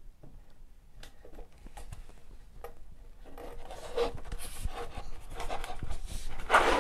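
IKEA floating box shelf being slid onto the two metal dowels of its wall bracket: faint clicks at first, then rubbing and scraping with small knocks that grow louder from about halfway, loudest near the end as the shelf is pushed home against the wall.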